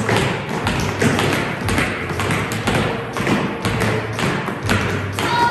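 Children's dance shoes tapping and stomping on a studio floor: many quick, uneven taps and thuds.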